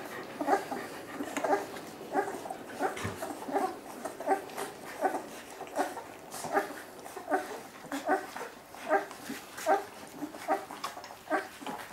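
A litter of three-week-old puppies whimpering and squeaking as they feed from their mother, in many short, high calls, roughly two a second.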